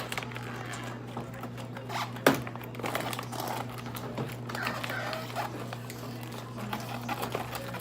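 Hands unpacking a toy blaster from its packaging: irregular plastic clicks, rattles and rustling, with one sharp knock about two seconds in, over a steady low hum.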